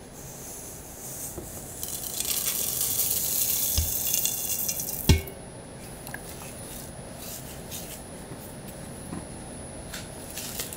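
Coconut flakes and cacao nibs pouring with a hissing rush for about three seconds, then a knock. After that come a few faint clicks.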